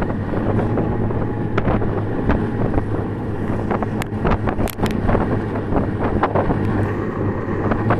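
Snowmobile engine running at a steady speed while riding over snow, with wind buffeting the microphone. A few sharp knocks come through it.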